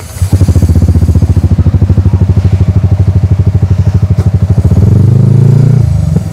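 Yamaha R15 V3 motorcycle's single-cylinder four-stroke engine running at idle with an even, fast pulse, then revved up about five seconds in and dropping back near the end.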